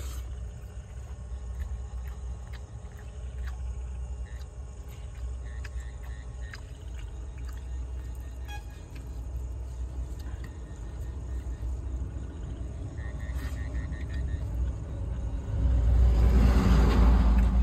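Road traffic: a steady low rumble with faint scattered clicks, then near the end a vehicle passes close by, loud for about two seconds.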